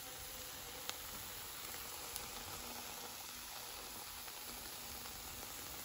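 Scrambled eggs with melted cheese sizzling softly in a frying pan, a steady hiss, with two small clicks about one and two seconds in.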